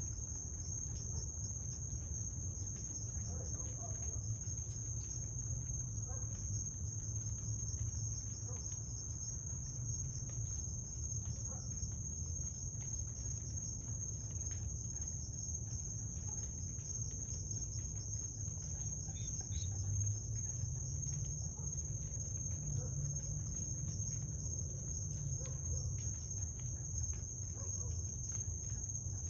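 Night insects, crickets or the like, trilling in a continuous chorus as one steady high-pitched tone, over a low rumble.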